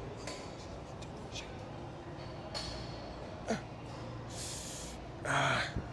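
A man breathing hard while holding a plank. A short hissing breath comes about four and a half seconds in, then a loud puffed exhale near the end.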